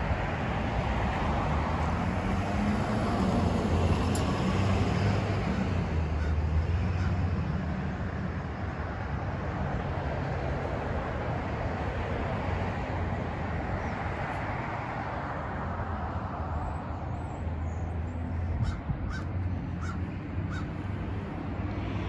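A steady outdoor rumble of wind and road traffic. Crows caw several times in quick succession near the end.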